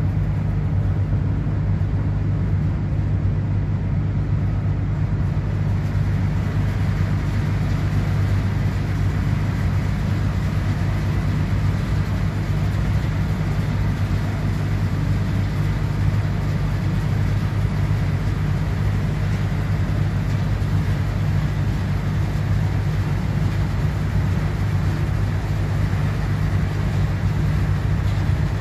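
A large wellboat's diesel machinery runs with a steady low drone as the vessel manoeuvres off its berth. A broad rushing noise builds in about six seconds in and holds.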